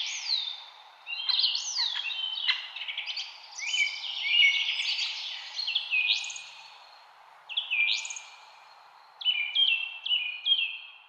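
Songbirds singing and chirping in quick, high whistled phrases with brief pauses between them, over a faint steady background hiss.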